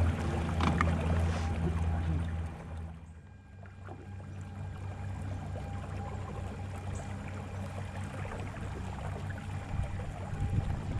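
Newport Vessels electric kayak motor running, a steady hum with water rushing along the hull. The hum drops sharply about three seconds in, then carries on at a lower level.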